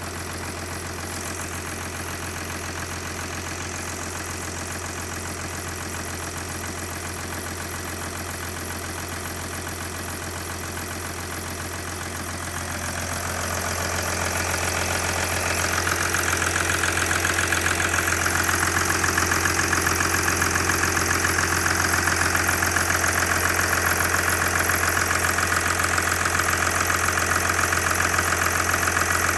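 Mercedes-Benz OM642 3.0 V6 diesel engine idling cold with a ticking, knocking noise. The sound grows louder and brighter about 13 to 16 seconds in, then holds steady.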